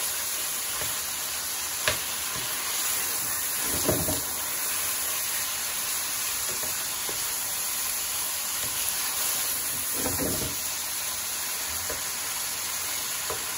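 Boneless chicken pieces sizzling steadily in hot desi ghee in a nonstick pan, stirred with a wooden spatula. A sharp knock of the spatula on the pan comes about two seconds in, and it scrapes through the pieces around four and ten seconds.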